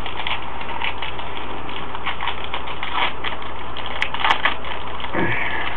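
A foil trading-card pack being torn open, its wrapper crinkling and crackling irregularly, with a few sharper clicks about four seconds in. Under it runs a steady hiss from a low-quality webcam microphone.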